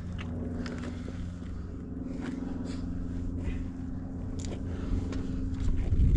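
Footsteps and scuffs on rock during a steep climb, scattered short clicks and scrapes, over a steady low drone.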